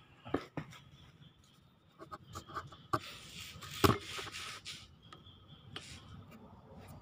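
Scattered clicks and knocks of small metal parts handled while a truck air-brake relay valve is taken apart by hand. The loudest knock comes about four seconds in, with a short scraping hiss around it.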